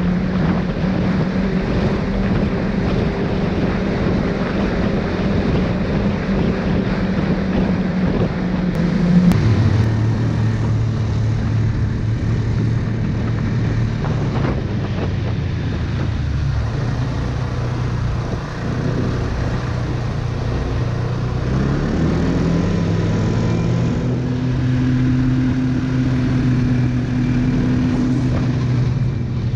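Snowmobile engine running at speed on a groomed snow trail. Its pitch drops about a third of the way in and climbs again about two-thirds of the way through as the throttle changes.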